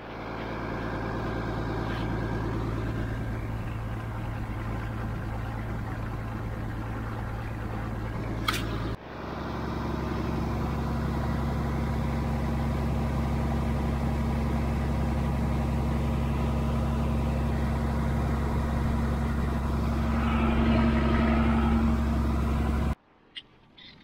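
Tractor engine running steadily, driving a grain auger through its PTO. The sound breaks off and resumes about nine seconds in, just after a short rising squeak, and stops suddenly a second before the end.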